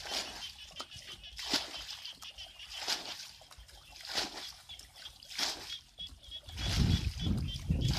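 Muddy paddy water bailed out by hand with a bucket: a scoop and splash about every second and a half as each bucketful is thrown out. A low rumble takes over near the end.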